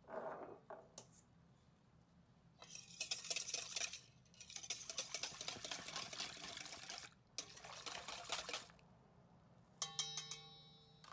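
Kitchen utensil working in a bowl: three stretches of rapid scraping or stirring. Near the end a utensil knocks against the dish with a short ringing clink.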